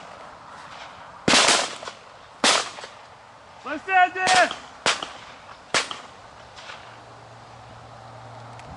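Shotgun shots fired at a wood pigeon in flight: about five sharp reports over some five seconds, uneven in spacing and loudness. A short shout comes in among them.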